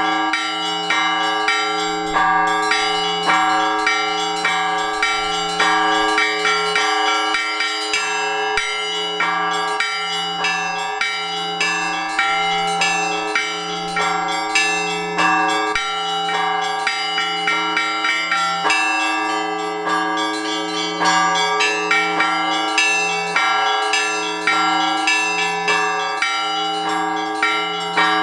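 Orthodox church bells rung together in a peal: a low, heavy bell strikes about once a second while several smaller bells beat a fast, repeating rhythm over it. The peal calls the faithful to the all-night vigil.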